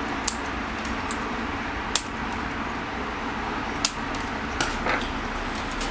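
About five sharp, separate clicks from the plastic parts and hand tools of a 3D printer's X-axis carriage being handled during assembly, over a steady low hum.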